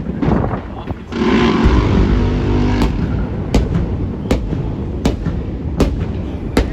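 A gun firing a steady series of rounds, one about every three-quarters of a second, over a loud rushing rumble that starts about a second in.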